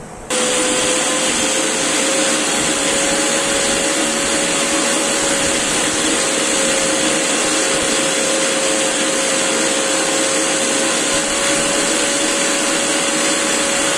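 Electric mixer grinder (mixie) switched on just after the start and running steadily at full speed, grinding roasted sesame seeds into powder: a loud whirring with a motor whine that creeps slightly up in pitch.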